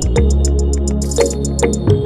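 Background electronic music: synthesizer notes over a deep held bass and a steady ticking beat.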